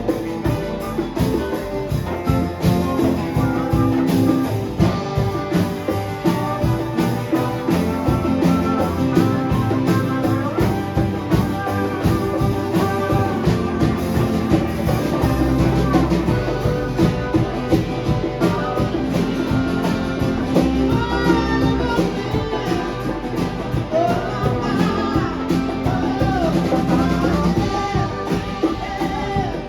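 Live rock band playing, with guitar, drums and singing.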